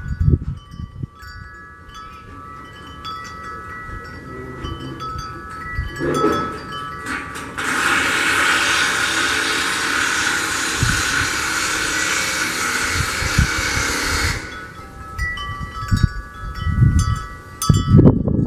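Wind chimes ringing, several clear tones overlapping and fading. A loud, even rushing noise covers them for about seven seconds in the middle, with a few low thumps near the start and end.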